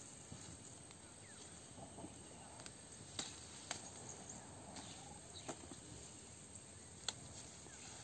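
Faint rustling of leafy crop plants with a few sharp snaps as pods are picked by hand, over a faint steady insect background.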